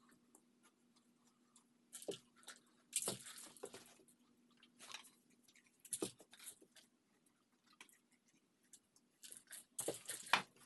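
A dog nudging a plastic treat-dispensing wobble toy about on carpet: faint, scattered rattles and crunches of kibble in a handful of short bursts, over a faint steady hum.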